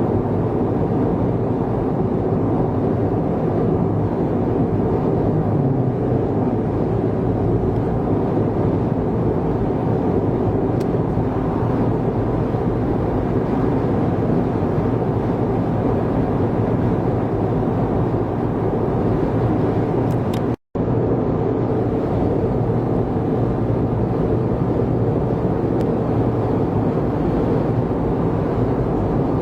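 Steady road and engine noise of a car cruising on an expressway, heard from inside the cabin. The sound cuts out completely for a split second about two-thirds of the way through.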